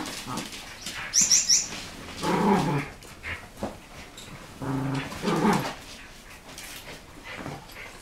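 Small dogs vocalizing at close range: a quick run of three high squeaks about a second in, then short, lower-pitched whining or growl-like calls around two and a half and five seconds in.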